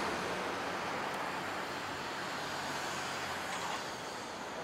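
Street traffic: a motor vehicle's engine hum and tyre noise going by, fading out near the end.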